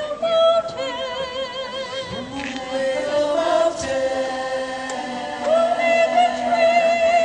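A choir singing a slow gospel song in long held notes, some with a wavering vibrato, with a lower part coming in about two seconds in.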